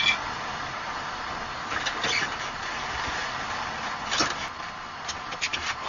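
A car engine running steadily, with a few faint clicks and knocks.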